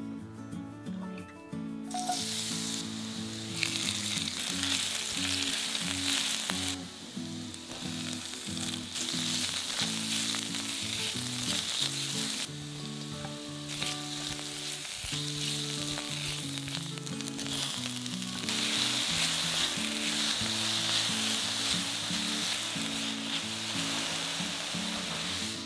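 Vegetables sizzling in hot oil in a wok as they are stir-fried with a slotted spatula: sliced mushrooms with garlic and ginger, then carrot, red pepper and enoki. The sizzle starts about two seconds in and comes in stretches with brief dips, loudest near the end, over soft background music.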